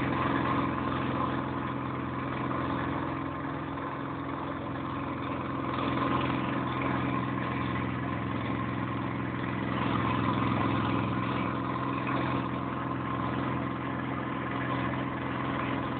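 A vehicle's engine running steadily, an even hum that swells slightly about six and ten seconds in.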